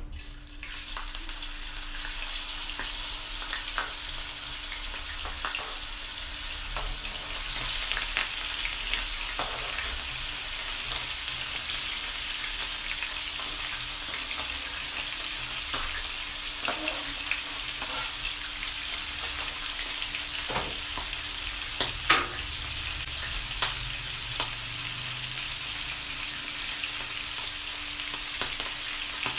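Diced raw chicken breast sizzling in hot oil in a frying pan, the sizzle starting as the pieces go in and running on steadily. A few sharp clicks and taps stand out as more ingredients are scraped in off a cutting board.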